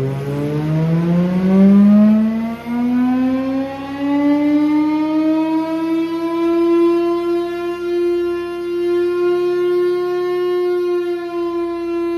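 Chrysler air raid siren winding up, its loud tone rising in pitch over the first few seconds and then holding steady.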